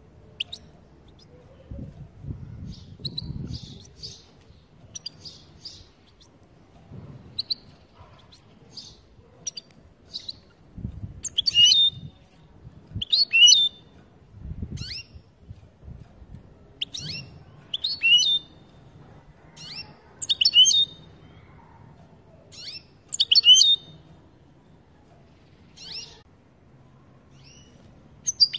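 European goldfinch giving its short 'pat-pat' calls, clipped chirps in clusters of two or three every second or two, louder through the middle. This is the excited call that keepers play to stir another goldfinch into song.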